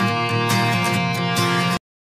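Background music with a regular beat that cuts off suddenly near the end into silence.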